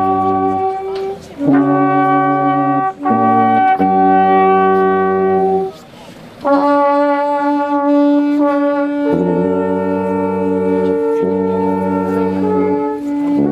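Brass band playing a slow piece of long held chords, with brief pauses between phrases, the longest about six seconds in.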